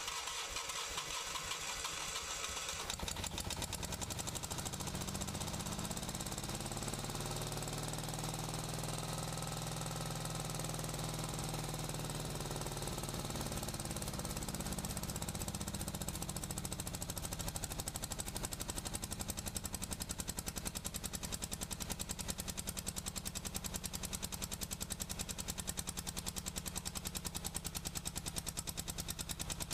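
Onan CCK two-cylinder gas engine of a 1973 Miller 225-amp welder running on only one cylinder, with a rough, knocking beat. Its speed rises and falls once in the first half, then it settles into an even, pulsing idle. The misfire is blamed on a bad intake gasket, and the engine dies if any throttle is applied.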